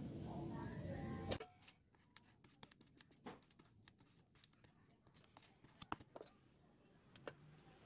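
Near silence with faint, scattered soft clicks and taps from a glue brush dabbing adhesive onto small leather pieces. A faint background murmur cuts off abruptly about a second and a half in.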